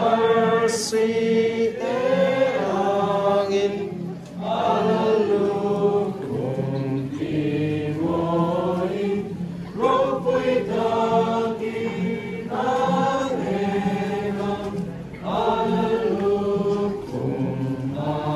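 A crowd of voices singing a hymn together in unison, in phrases of a few seconds separated by short breaks.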